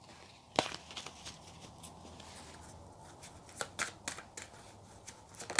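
Tarot cards being shuffled by hand: scattered crisp snaps and flicks of card stock, with a louder slap about half a second in and a quicker run of snaps near the end.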